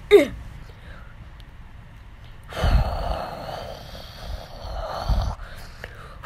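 A short falling vocal cry, then about three seconds of breathy, hissing vocal noise, like a long exhaled "hhhaaa" made with the mouth as a sound effect.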